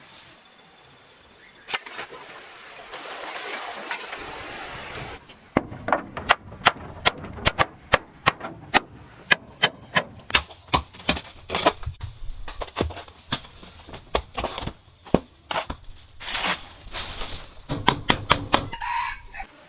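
Chickens clucking over a run of sharp knocks, about two a second for several seconds from around six seconds in, then more spaced.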